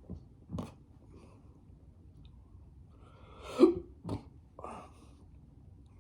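A man hiccuping a few times, short sharp bursts with one much louder than the rest about halfway through. The hiccups are brought on by the heat of a superhot 7 Pot Lava chili pepper.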